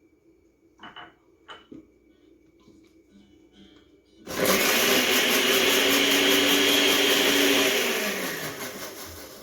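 Kitchen blender running a short burst of about four seconds, then spinning down with a falling whine. Two light knocks come before it starts, about a second in.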